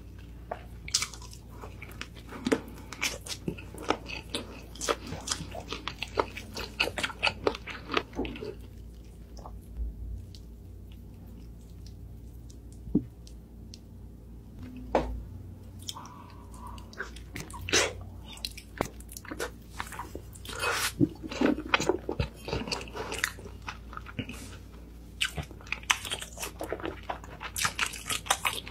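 Close-miked eating sounds of glazed roast chicken being bitten and chewed, with dense crisp crunches and mouth clicks. The eating goes quiet for several seconds about a third of the way in, with only a few soft clicks, then the crunching and chewing pick up again.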